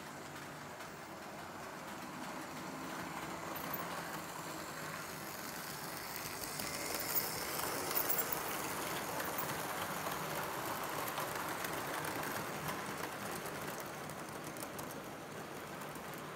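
Märklin H0 model freight train, hauled by a BR E 194 electric locomotive, running past on K-track. The motor whirs and the wheels rumble, swelling as the train nears and easing off as it goes by, with a few sharp clicks over rail joints or points about halfway through.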